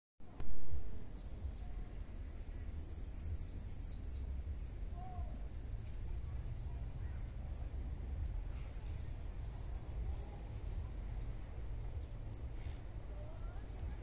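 Many small birds chirping with quick, high, sweeping calls over a steady low rumble. There is a loud thump about half a second in.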